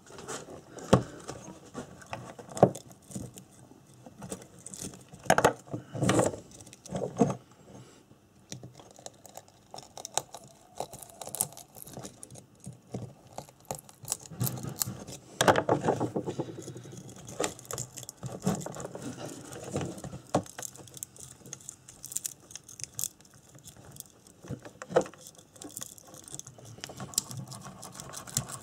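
Hand tools working a Honda CB250N motorcycle stator as the old copper winding is pulled off an ignition coil: pliers and a metal pick scrape, click and snag on the coil, with rustling wire and irregular small metallic clicks.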